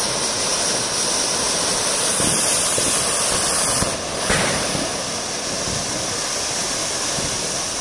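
Several anar (flower-pot fountain fireworks) burning together, a steady rushing hiss of spraying sparks, with a short crack about four seconds in.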